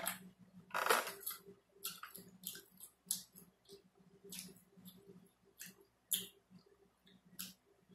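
Close-up mouth sounds of eating: wet lip smacking and chewing, an irregular run of short clicks, with a louder smack about a second in.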